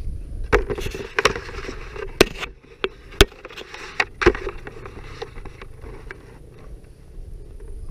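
Handlebar-level clatter from a 1997 Kawasaki KDX220 two-stroke dirt bike on a dirt trail: sharp knocks and rattles, about six loud ones in the first half, then lighter scattered ticks, over a low rumble.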